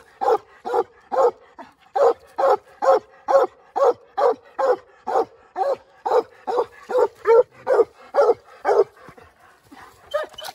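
Young coon hounds, a black and tan and a redbone, barking treed at the foot of a tree: a steady run of short barks about two a second, stopping about nine seconds in.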